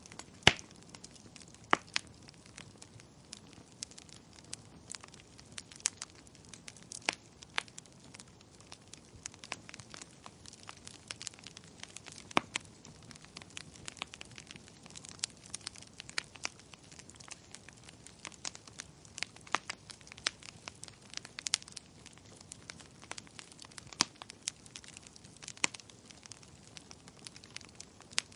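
Wood fire burning in a fireplace: a soft hiss broken by irregular crackles and sharp pops, several a second at times, with the loudest pops about half a second and two seconds in.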